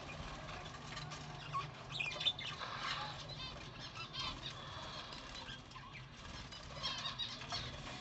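A flock of budgerigars chattering in short, quick chirps and warbles, with wings fluttering now and then.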